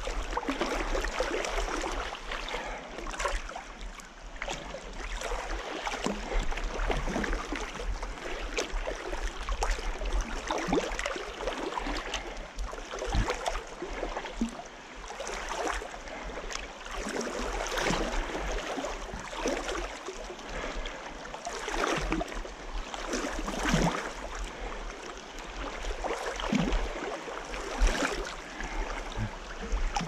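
Shallow river water splashing and sloshing in irregular strokes, as from steps wading through the Big Sur River, over the steady rush of the flowing stream.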